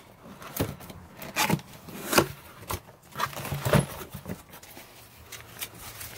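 Cardboard and paper packing being handled: box flaps knocking and paper wrapping rustling as parts are lifted out. There are four or five sharp scrapes and knocks in the first four seconds, then softer rustling.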